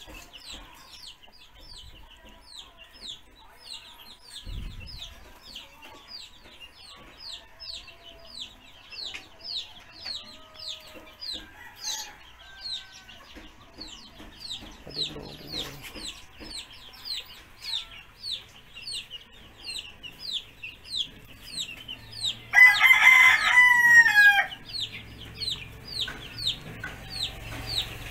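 Chicks peeping steadily, about three short high falling peeps a second. About three-quarters of the way through, a rooster crows for about two seconds, the loudest sound, its call falling away at the end.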